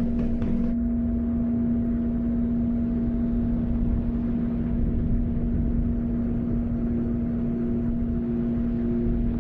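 A steady low drone holding one pitch over a rumble, with a soft pulsing higher note coming in about seven seconds in.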